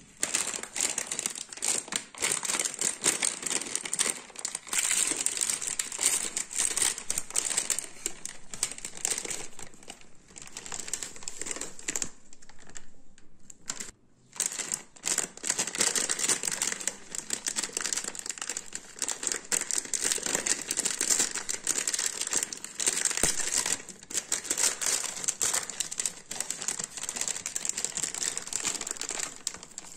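Thin plastic marshmallow bags crinkling and rustling as they are handled, opened and emptied into a glass bowl, a dense crackle of small sharp crackles, with a short pause about twelve seconds in.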